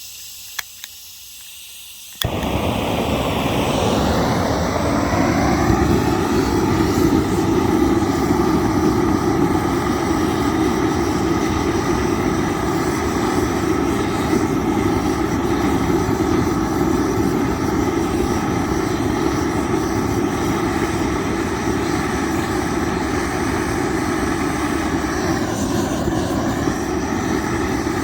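A couple of faint clicks, then about two seconds in a loud, steady roar starts abruptly, its pitch sweeping for a few seconds before it settles. It is a fire-lighting tool being used to light a cup of wood pellets in a wood stove.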